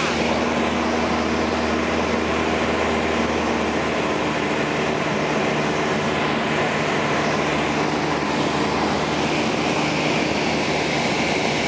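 Cabin noise of a high-wing light airplane in cruising flight: a steady engine and propeller drone with air rushing past the cabin.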